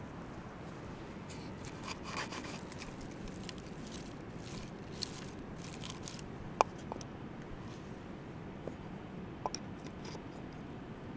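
Dry wood shavings being scraped and pulled apart by hand on split wood, in short scratchy spells, with a few sharp clicks.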